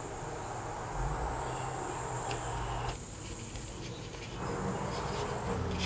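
A steady, high-pitched insect trill, like crickets, over a low hum.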